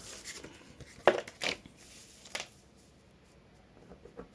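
Clear plastic pattern-making rulers being handled and set down on a sheet of pattern paper: a few short clacks and paper rustles, the sharpest about a second in.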